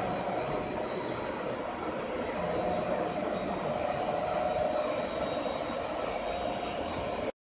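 Stage cold spark (cold fireworks) machine running, jetting a fountain of titanium-powder sparks with a steady rushing noise and a faint hum. It cuts off abruptly near the end.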